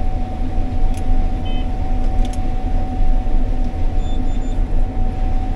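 Combine harvester running while cutting corn, heard from inside the cab: a steady low rumble with a constant whine over it. A few faint short beeps sound about four seconds in.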